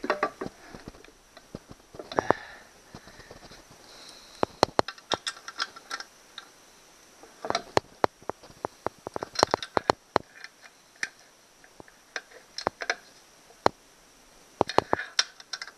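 Socket ratchet clicking in short irregular runs as it tightens the outboard's midsection screws, with sharp metallic clicks and taps of the tool on the aluminium housing.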